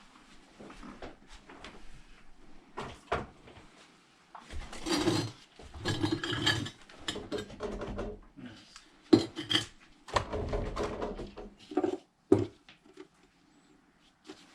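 Irregular knocking, clattering and crunching of wood and loose household debris being stepped on and shifted, with a few sharp knocks about nine and twelve seconds in.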